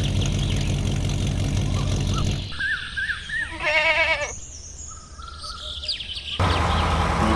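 A steady mechanical hum cuts off about two and a half seconds in, giving way to birds chirping, with a quick warbling trill in the middle. The hum returns abruptly near the end.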